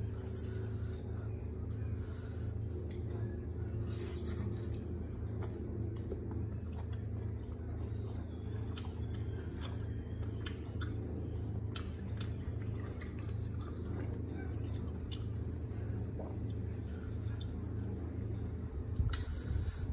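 Close-up eating sounds of boiled octopus being torn apart by hand and chewed: scattered sticky clicks and wet squelches, with a few short louder wet noises, one near the end. A steady low hum runs underneath.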